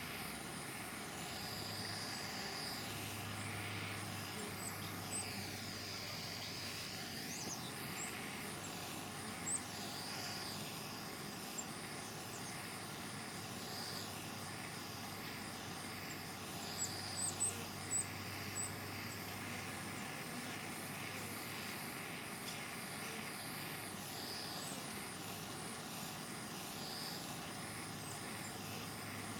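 Handheld propane torch burning steadily with an even hiss, heating a homemade oxalic acid vaporizer to vaporize the acid into a beehive. A few faint short high chirps are heard over it.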